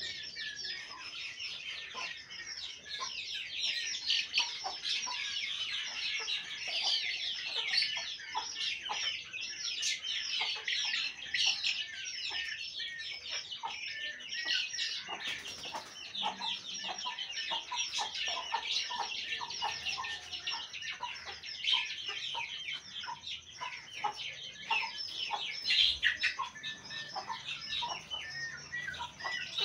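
A group of young Aseel chicks peeping constantly, many short high calls overlapping without a break.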